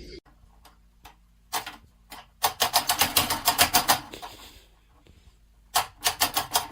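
Sharp taps or clicks: a few single ones, then a fast run of about nine a second through the middle, and a shorter run near the end.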